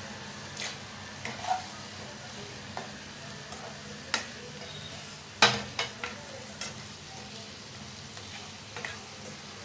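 A spatula stirs eggplant curry in a non-stick frying pan over a low sizzle of frying. Scattered sharp scrapes and taps of the spatula against the pan stand out, the loudest about halfway through.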